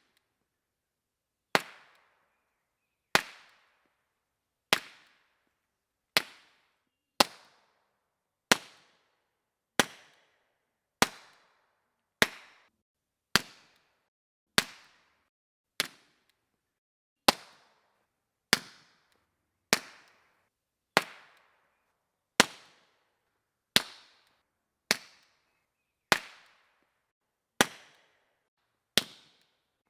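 Suppressed 9mm pistol shots from a CZ 75B fired through short 9mm suppressors run wet: about twenty single shots, roughly one every second and a half, each a sharp crack with a brief fading tail.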